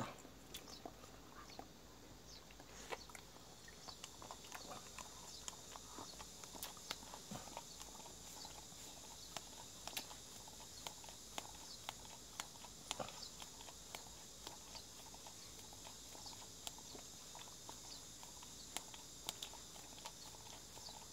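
A yellow Jindo dog licking ice cream out of a plastic cup: faint, irregular wet licking clicks. A steady high hiss sets in behind them about three seconds in.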